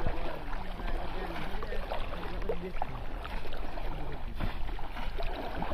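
Muddy water splashing and sloshing as people wade waist-deep and plunge bamboo polo fish traps down into it, with scattered sharper splashes throughout.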